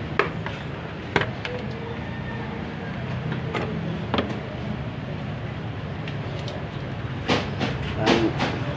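Hand work with tools at the radiator and fan shroud of a car engine bay: scattered sharp clicks and knocks of metal and plastic parts, a second or more apart and coming closer together near the end, over a steady low hum.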